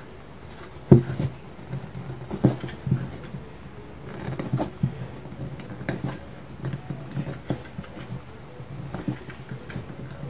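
Hands working a plastic solar light into a metal mason jar lid ring against a tight fit: irregular clicks, knocks and scraping, with the sharpest knock about a second in.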